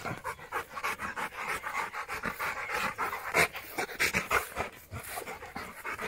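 A Rottweiler panting rapidly and rhythmically, several breaths a second, out of breath from exertion.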